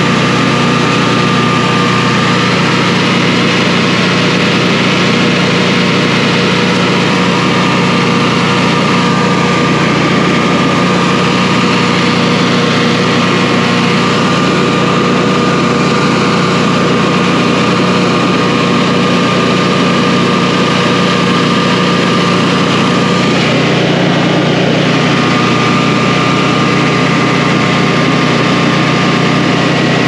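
Honeywell standby generator's engine running steadily, with the oil pressure switch wire left off so it keeps running instead of shutting down on low oil pressure: the oil pressure switch is faulty, stuck shorted.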